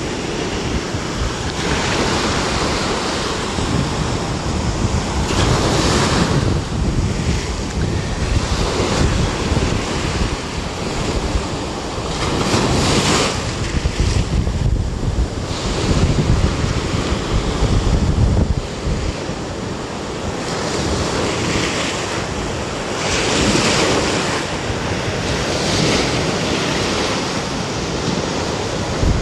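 Sea surf breaking and washing up a sandy beach, the foam rushing over the sand in swells every few seconds. Wind buffets the microphone throughout.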